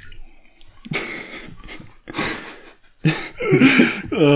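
A person coughing in two short, harsh, breathy bursts about a second apart, then a longer voiced groan near the end, as from choking on a mouthful of food.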